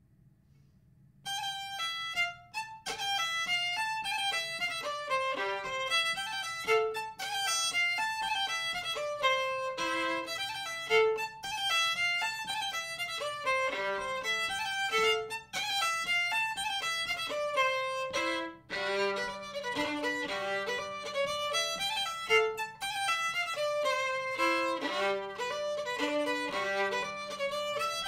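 Solo violin playing a quick, ornamented traditional Finnish folk fiddle tune, starting about a second in. In the later passages a steady low open-string drone sounds under the melody.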